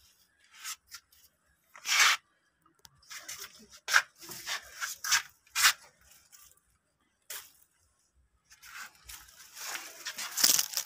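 Pruning shears snipping bitter gourd stems off the vine: several short, sharp cuts, with the leaves and vines rustling as they are pushed aside, the rustling growing louder near the end.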